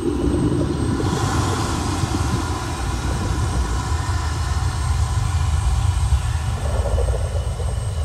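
Deep underwater rumble. A steady rushing hiss joins it about a second in and fades near the end.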